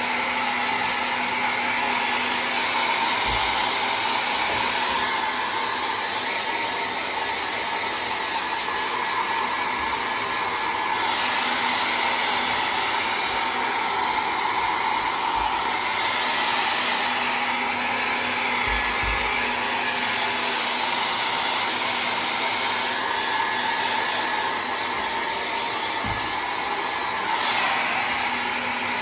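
Hair dryer blowing steadily, drying the wet ink on a painting.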